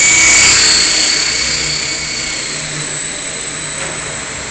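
Esky Belt CPX electric RC helicopter flying, its motor and rotor blades giving a steady high-pitched whine over a rushing hiss; it grows quieter after about a second.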